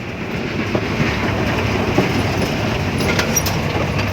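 Off-road Daihatsu Taft with a swapped-in truck engine running steadily as it drives, the engine drone mixed with scattered clicks and knocks from the vehicle on rough ground.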